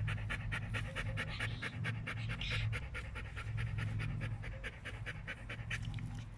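Golden retriever panting rapidly and evenly, several breaths a second, over a steady low rumble.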